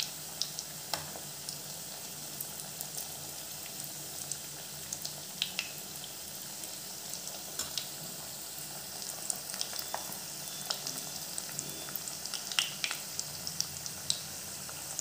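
Breadcrumb-coated egg fingers deep-frying in hot oil in a kadai: a steady sizzle with scattered crackles and pops.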